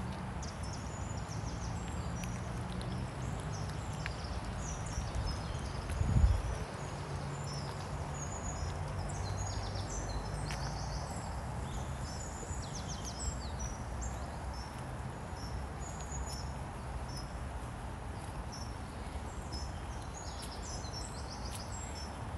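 Steady rain hiss with birds chirping again and again over it and a low engine hum underneath. A brief low thump about six seconds in is the loudest moment.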